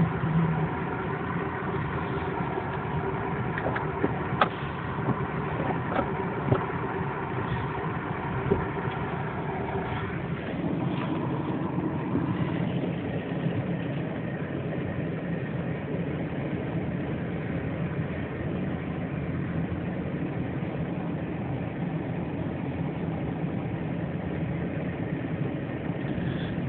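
Car engine and road noise heard from inside the cabin as the car drives slowly: a steady hum with a few light clicks in the first half, turning to a more even rumble partway through.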